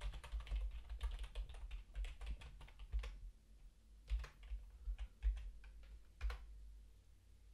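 Typing on a computer keyboard: a fast run of keystrokes for about three seconds, then a few scattered key presses, the last one about six seconds in.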